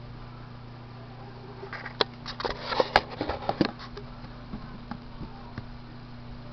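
A quick burst of clicks, knocks and rattles as the camera is handled and set down on the bench, over a steady low hum.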